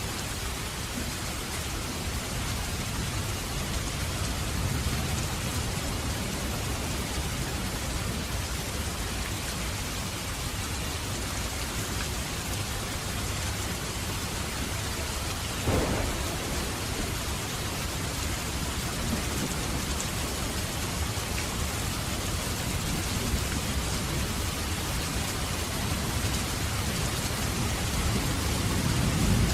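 Thunderstorm: steady heavy rain hiss under low rolling thunder, the rumble swelling a few seconds in and again near the end. There is one short, sharp crack about halfway through.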